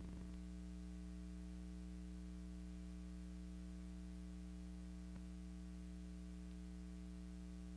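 Steady electrical hum with a faint hiss, the only sound on a silent film's track, with a faint click about five seconds in.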